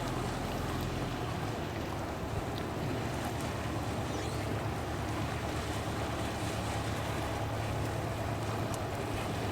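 Small passenger ferry's engine running with a steady low hum, over a continuous wash of water and wind noise.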